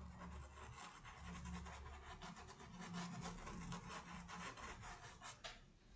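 A small stiff-bristled paintbrush scrubbing paint in small circles on a cotton tea towel: a faint, scratchy rubbing of many quick strokes.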